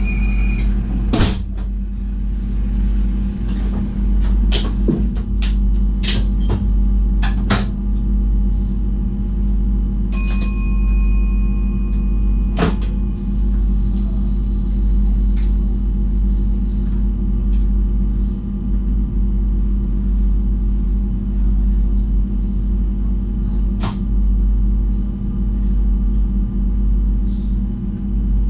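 Cab of a VIRM electric double-deck train standing at a platform: a steady electrical hum from the train's equipment. Sharp clicks and knocks come several times in the first half and once more later. A short high tone sounds about ten seconds in.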